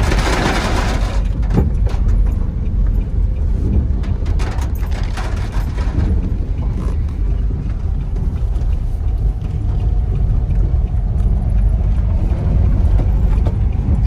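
Steady low rumble of a car's engine and tyres on a wet road, heard from inside the cabin, with a brief hiss in about the first second.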